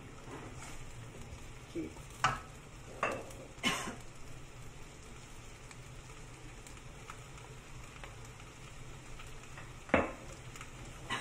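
Cabbage, potato and minced meat sizzling steadily in a wok while being stir-fried with a wooden spatula. There are sharp knocks and scrapes from the spatula against the pan: three in quick succession about two to four seconds in, and a louder one near the end.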